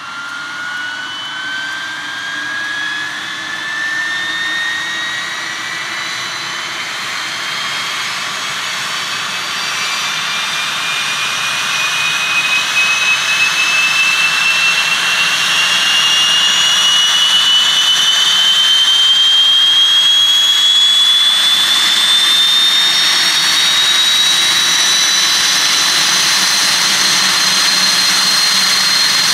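Westland Wasp helicopter's Rolls-Royce Nimbus turboshaft engine starting up. Its turbine whine rises steadily in pitch and grows louder as the engine spools up.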